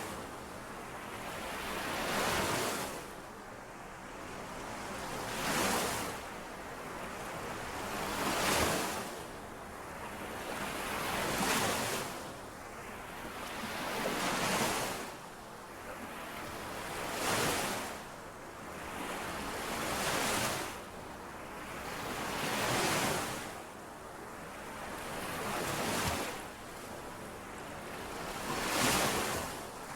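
Small lake waves washing in and out on the shore in a steady rhythm, one swell about every three seconds, each rising to a brief hissing peak and then falling back.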